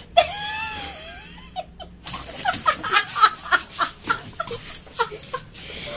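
Dog protesting at being offered medicine, described as aggressive: one drawn-out whining call, then from about two seconds in a quick string of short sharp yips and grumbles.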